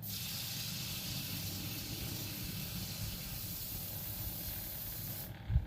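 Aerosol spray can hissing in one continuous spray of about five seconds, which cuts off sharply, followed by a short low thump near the end.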